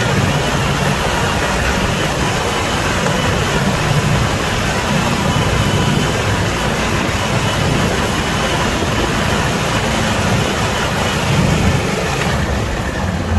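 Snowmobile running steadily under way, a loud engine drone under a constant rush of noise. The sound changes abruptly near the end.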